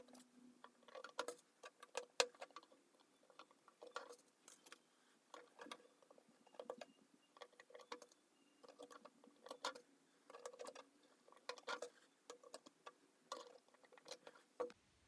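Faint, irregular small clicks and taps of jumper-wire connectors being handled and pushed onto the header pins of a relay board and a Raspberry Pi.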